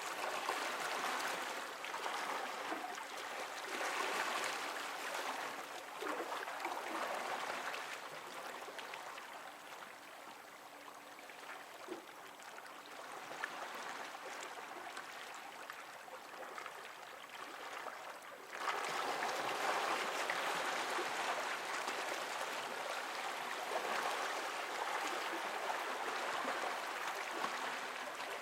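Water splashing and rushing close to the microphone, in uneven surges, growing abruptly louder about two-thirds of the way through.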